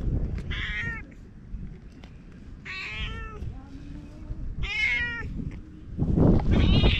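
Domestic cat meowing four times, each call short and spaced a second or two apart. A low rumbling noise on the microphone is loudest at the start and again near the end.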